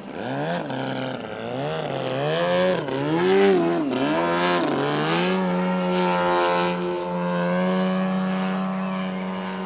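Engine of a large radio-controlled aerobatic plane in flight. Its pitch swings up and down several times through aerobatic manoeuvres, then holds a steady note from about halfway through.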